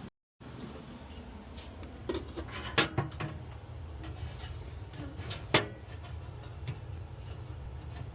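Irregular metallic clinks and knocks as metal parts of a gas range are handled, over a steady low hum, with the two loudest knocks about three and five and a half seconds in.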